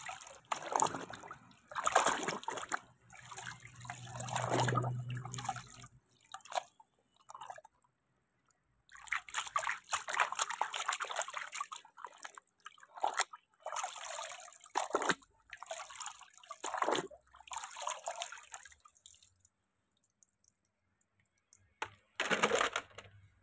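Water splashing and sloshing in irregular bursts, with two short pauses, as a plastic toy car is washed by hand in a tub of muddy water.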